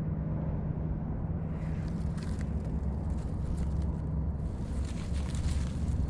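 Crackling rustle of dry leaves and twigs on the forest floor, thickest about two seconds in and again near the end, over a steady low hum.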